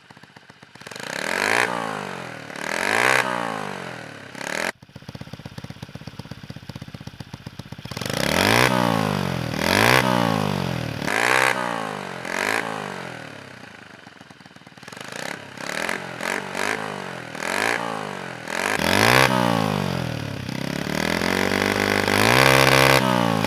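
Honda Monkey mini bike's single-cylinder four-stroke engine with an NHRC aftermarket exhaust, idling and being revved again and again. Each rev rises and falls in pitch, mostly in short blips, with a longer held rev near the end.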